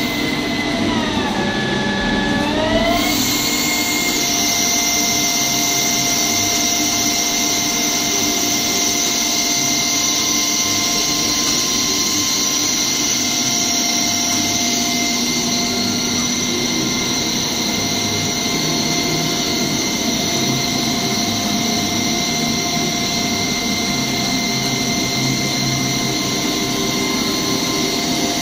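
Style 730/3000 CNC lathe turning a metal workpiece: the spindle drive gives a steady multi-tone whine over the noise of the cut. About a second in the whine drops slightly in pitch, then rises back about three seconds in and holds steady.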